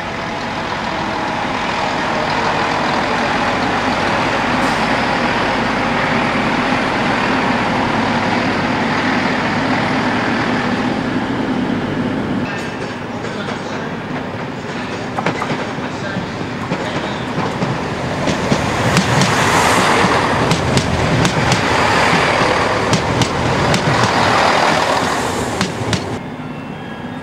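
A train passing on the line: a steady rumble with a low hum, then rapid clicks of wheels running over rail joints as the vehicles go by. It grows louder in the last third and cuts off abruptly near the end.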